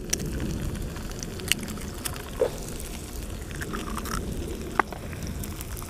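Bacon, mushrooms and eggs sizzling in a frying pan on a gas camping stove, with a few sharp clicks as an egg shell is cracked against a knife over the pan.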